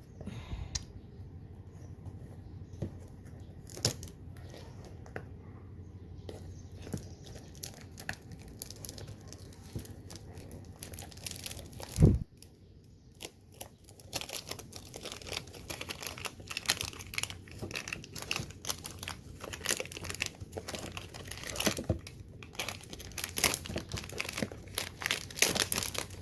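Packaging crinkling and rustling as the rack's parts are unwrapped and handled, with one loud knock about halfway through. The crinkling becomes busier and denser in the last third.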